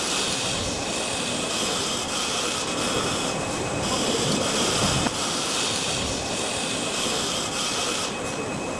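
Machine noise of a battery-pack laser welding station: a steady hiss, with a higher hiss that cuts in and out every second or two.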